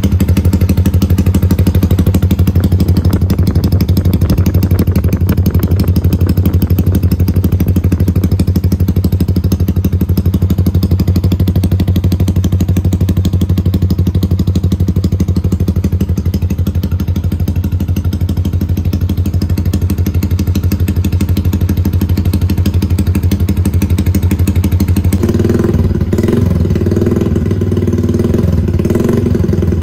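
Yamaha Y15ZR's stock 150 cc single-cylinder engine running at a steady idle through a Red Leo 32 mm open (unbaffled) exhaust, a loud, deep note. About 25 seconds in the note changes and wavers, as if the throttle is being worked.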